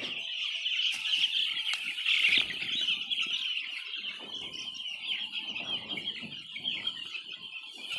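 A large flock of chickens: a continuous high chorus of cheeping with clucks, over rustling and wing-flapping.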